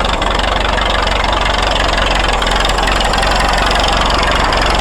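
The 1927 Fordson road roller's four-cylinder engine idling steadily, an even rapid chuffing beat with no change in speed.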